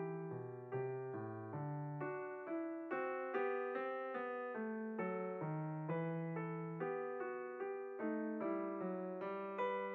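Background piano music: a gentle melody played in a steady stream of single notes over a lower line.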